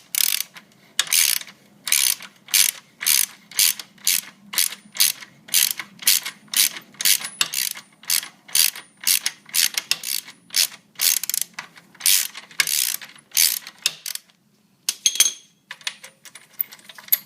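Ratchet wrench clicking in repeated back-and-forth strokes, about two a second, backing out a 12 mm bolt that holds up a motorcycle's stock exhaust. The ratcheting stops about 14 seconds in, followed by a few light metallic clinks.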